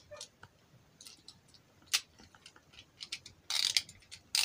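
Scattered light clicks and taps from Beyblade spinning tops being handled, with a short rustle about three and a half seconds in.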